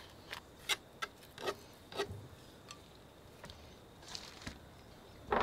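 Knife and gloved hands working a tuna fillet on a plastic cutting board: scattered light clicks, taps and short scrapes, with a louder scrape near the end.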